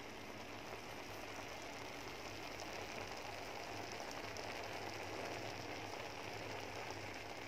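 Steady, low sizzling hiss of layered biryani cooking in a non-stick pan on a gas stove.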